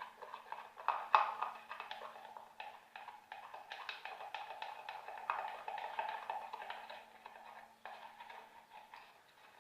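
A stirrer mixing glue and borated glycerin into slime in a container, with quick irregular taps, clicks and scrapes against the container.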